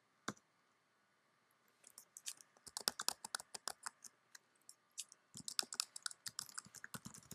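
Computer keyboard keys clicking as someone types. A single click comes near the start, then a pause of about a second and a half, then two quick runs of keystrokes.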